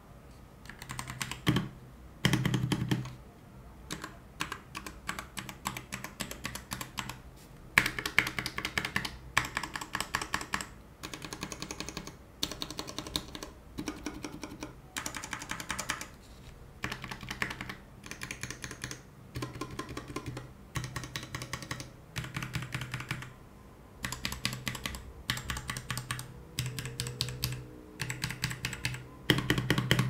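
Typing on a Royal Kludge RK G68 mechanical keyboard in its stock case: rapid key clicks in runs of a second or two with short pauses between.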